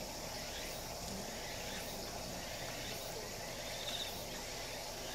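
Steady outdoor summer ambience: a constant hiss of insects, with one brief high chirp about four seconds in.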